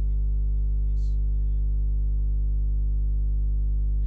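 Loud, steady electrical mains hum: a low buzz with a stack of harmonics, unchanging throughout, from a recording fault that buries any speech underneath.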